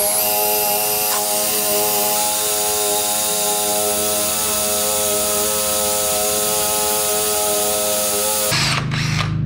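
DeWalt 18V cordless drill running at a steady speed, its bit cutting through steel angle iron: a steady whine over a hiss of cutting, which stops about eight and a half seconds in.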